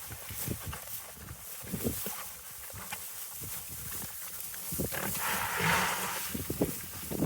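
Farm animals calling, with scattered knocks and rustles and a louder noisy stretch about five seconds in.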